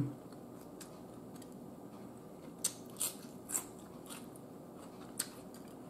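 Close-miked eating sounds: a few short, sharp wet clicks and smacks from chewing, about four of them in the second half, over a quiet background.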